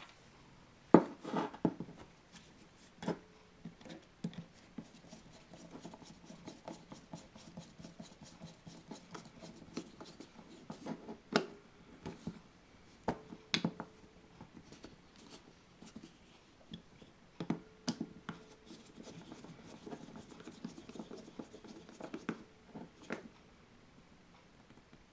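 Flat-blade screwdriver turning the small screws that hold down the top assembly of a Villiers S10 carburettor: scattered light clicks and metal-on-metal scraping, with a handful of sharper knocks as the tool and the carb body shift.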